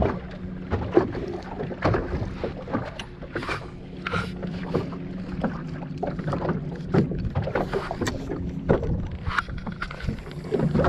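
Waves slapping irregularly against a small boat's hull and wind buffeting the microphone, over a steady low hum.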